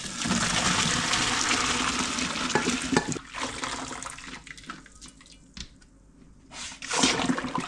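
Pot of hot water and blanched asparagus poured into a plastic colander in a sink: a loud rush of water for about three seconds, then trickling and dripping as it drains.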